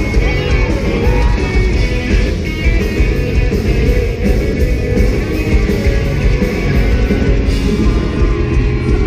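Pop-punk band playing live through a loud PA, a dense wash of electric guitars, bass and drums, with sung vocals audible in the first couple of seconds.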